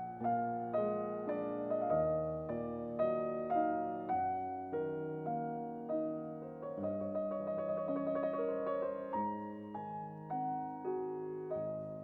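Background piano music: soft keyboard notes and chords played at an even, moderate pace, each note struck and fading.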